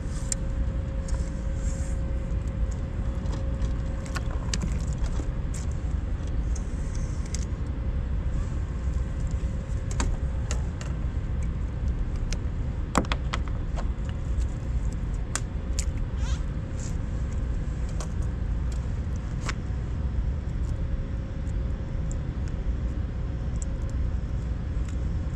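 Scattered small clicks and light metallic rattles of fishing tackle being handled, over a steady low rumble.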